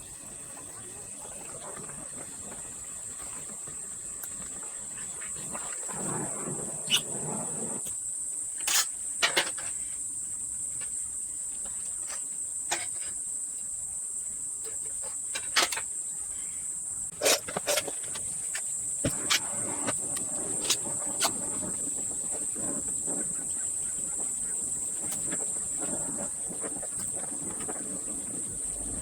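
A steady, high-pitched insect chirring runs throughout. About a dozen sharp clicks or taps are scattered through the middle stretch.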